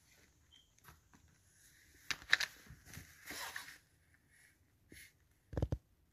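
Hard plastic toy ball shells and a small plastic doll being handled: scattered light clicks and rustling, busiest from about two to four seconds in, then two sharp knocks near the end as plastic is set down or tapped.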